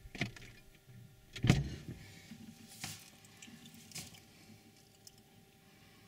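Refrigerator door being opened: a few clicks and knocks, the loudest a thud about a second and a half in, then lighter knocks around three and four seconds in.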